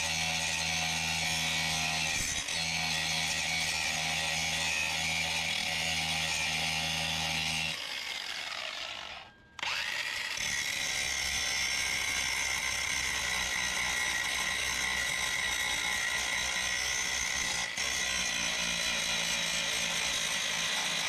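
Cordless angle grinder grinding tack welds on the steel firewall, running steadily. About eight seconds in it winds down and goes nearly silent for a moment. Then it starts again and grinds on.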